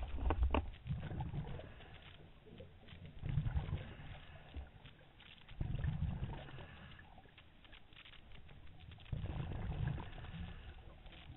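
Scuba diver's regulator exhaust bubbles heard underwater: low gurgling bursts of exhaled bubbles every three seconds or so, with faint clicking in between.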